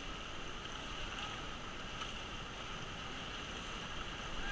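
Steady rushing of river water around a raft during a whitewater run.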